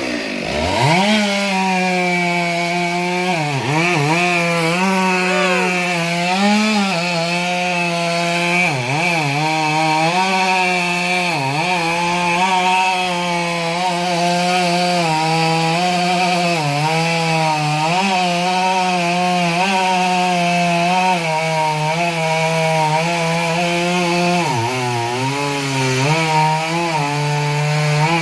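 Chainsaw running at high revs while cutting wood. Its pitch sags briefly several times as the chain bites under load, then recovers.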